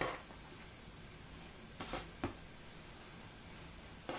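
Soft rustling of fabric being handled while pieces are pinned together: a few brief rustles, two of them close together about two seconds in.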